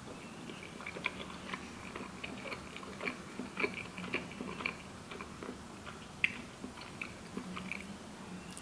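Close-up chewing of bread dipped in tomato soup: a string of faint, irregular mouth clicks and smacks.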